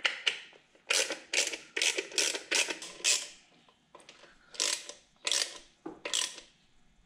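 Socket ratchet clicking in short bursts of a few strokes at a time, running down the intake plenum bolts.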